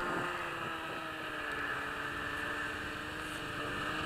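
Snowmobile engine running steadily, its pitch sagging slightly and then rising again near the end.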